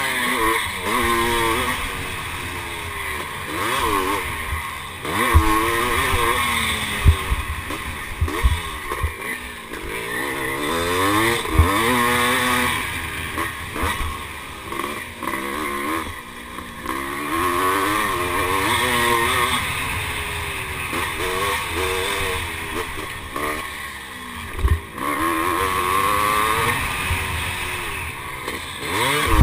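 1978 Husqvarna CR390's single-cylinder two-stroke engine under race load, revving up and dropping back again and again. A few short low thumps come through along the way.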